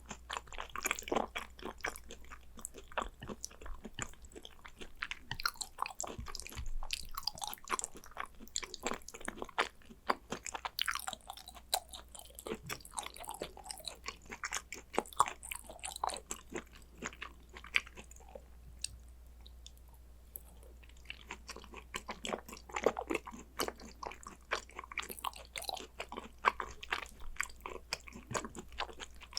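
Close-miked chewing and biting of spicy gochujang raw beef tartare (yukhoe): a dense run of short wet clicks and mouth noises, easing off briefly about two-thirds of the way through.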